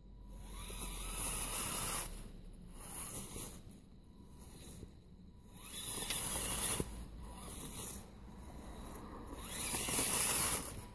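Scale RC crawler's electric motor and gears whirring in about four short throttle bursts, each rising briefly as it spools up, while the tyres scrape and crunch through snow on a climb.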